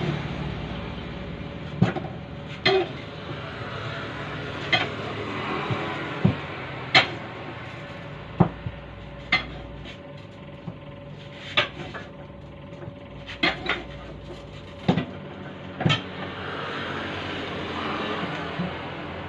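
Tyre lever clanking against the wheel rim as a car tyre's bead is levered onto the rim by hand: about a dozen sharp metallic knocks at irregular intervals, over a steady background hum.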